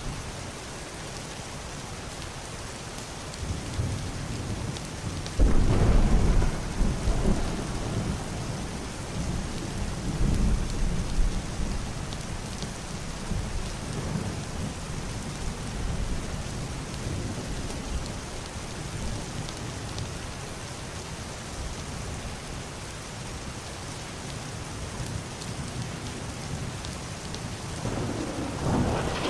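Heavy rain on a roof and window, a steady hiss throughout. A clap of muffled thunder breaks in suddenly about a fifth of the way in as the loudest sound, rolling on for several seconds before fading back into the rain. Another low rumble builds near the end.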